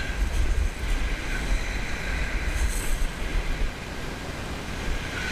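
Wind buffeting the microphone with a heavy, uneven rumble that eases a little past the middle, over surf on a shingle beach, as a multiplier reel is wound in on a hooked fish.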